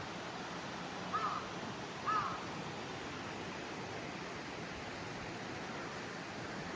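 Steady rush of a mountain stream, with two short bird calls about a second apart near the start.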